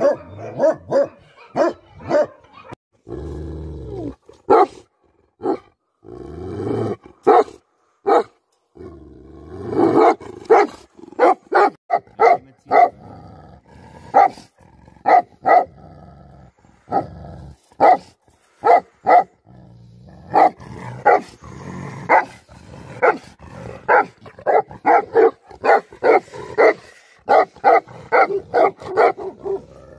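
Tibetan mastiffs barking in deep, aggressive bouts: many short, sharp barks, broken by a few longer, deeper calls in the first ten seconds. The barks come quicker toward the end, two or three a second.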